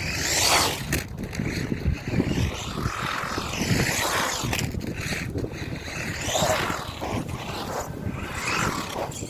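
Fayee FY03 Desert Eagle RC truck's electric drive whining, rising and falling in pitch as the throttle is worked, over a rough low rumble.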